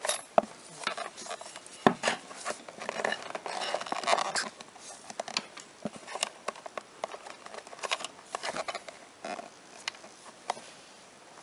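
Handling noise from a Corvette C5 side-mirror assembly: irregular clicks, knocks and scraping of the plastic housing and metal base, as a wire-tied compressed spring is pushed down toward its seat on the mirror's pedestal without seating. One sharper knock stands out about two seconds in.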